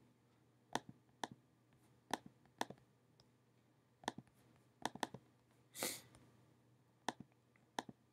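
About a dozen sharp clicks and taps at uneven intervals, with a short rustle a little past the middle, over a faint low hum.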